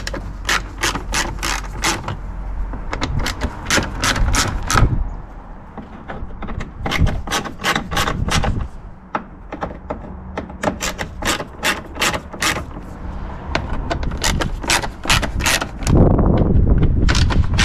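Ratcheting screwdriver clicking in quick runs of about three to four clicks a second as T25 Torx screws are undone from a plastic scuttle panel, in several bursts with short pauses. A louder rumble comes in near the end.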